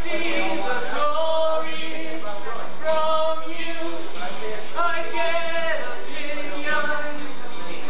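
Rehearsal of a musical number: several voices singing together over music, in phrases of held notes about a second long.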